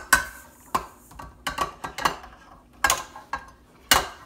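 Irregular clinks and taps of a utensil against glass and metal bowls, about a dozen sharp strikes, as granulated sugar is scraped from a glass bowl into a stand mixer's bowl.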